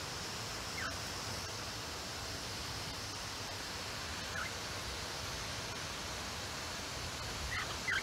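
Cockatiels giving short chirps, one about a second in, one near the middle and two close together near the end, over a steady hiss of falling water from their shower.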